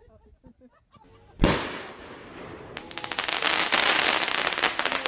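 Fireworks going off: one sharp, loud bang about a second and a half in, then from about three seconds in a long stretch of dense, rapid crackling.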